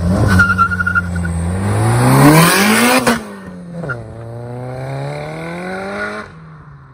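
Big-turbo Saab 9-5's turbocharged four-cylinder accelerating hard from a standstill: the engine pitch rises, drops sharply at a gear change about three seconds in, then climbs again as the car pulls away and fades. A brief high tyre squeal at the launch.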